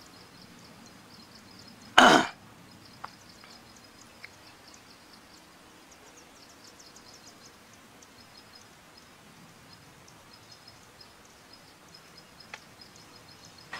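A person clears their throat once, short and sharp, about two seconds in, over faint high chirping from the surroundings.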